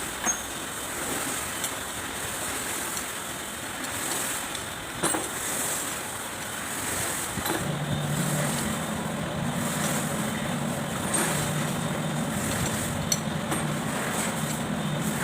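Steady background noise with a few sharp clicks, and a low steady machine hum that starts about halfway through.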